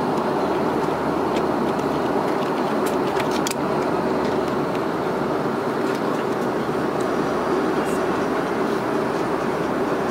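Steady cabin noise inside an Airbus A340-600 airliner: an even drone of engines and airflow, with a few light clicks or rustles about three seconds in.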